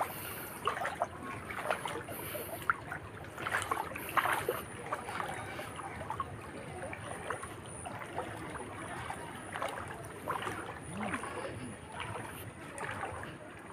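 Floodwater sloshing and swishing around legs as people wade knee-deep through it, an irregular run of swishes and small splashes.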